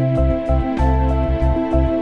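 Instrumental background music: held notes over a bass line that shifts in pitch.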